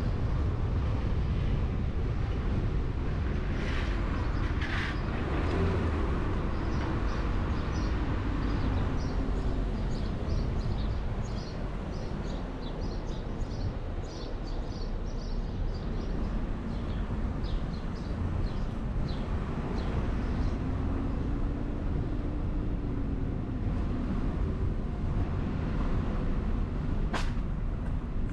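A car driving slowly along a city street: a steady low rumble of road and wind noise with a faint engine hum that rises and falls in pitch. A run of short high chirps comes through the middle, and a single sharp click sounds near the end.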